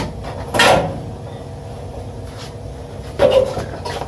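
Two short clunks of parts or tools being handled, about half a second in and again about three seconds in, over a steady low hum.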